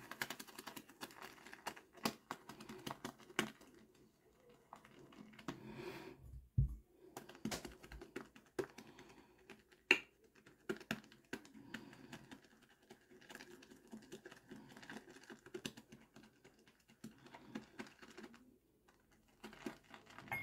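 Wet boar-bristle shaving brush being swirled and scrubbed on a puck of shave soap in a ceramic bowl, loading the brush: a faint, busy run of scratchy squishing with many sharp clicks and taps, the loudest about ten seconds in.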